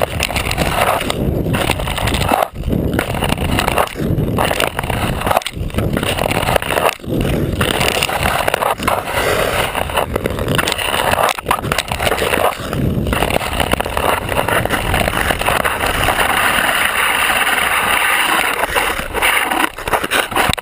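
Ice skate blade scraping and gliding over snow-dusted outdoor ice, heard right at the skate. Strides come about every second and a half, with short breaks as the skate lifts. About two-thirds of the way through they give way to one long unbroken glide.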